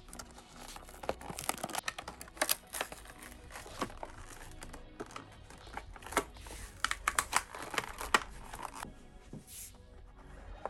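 Stiff clear plastic blister packaging crackling and crinkling as it is pried and torn off its cardboard backing card, a quick run of sharp crackles that stops about nine seconds in. Soft background music runs underneath.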